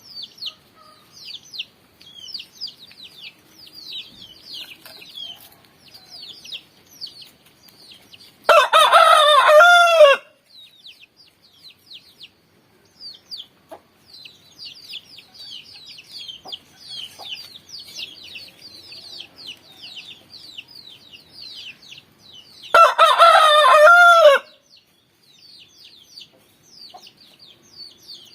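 Rooster crowing twice, each crow about a second and a half long with a falling tail, roughly fourteen seconds apart. Between the crows runs a constant chatter of quick, high chirps.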